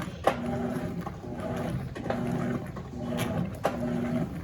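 Electrolux LF90 top-loading washing machine agitating: the motor hums through each short stroke and pauses as the agitator reverses, about one stroke a second, with sharp clicks at some of the reversals.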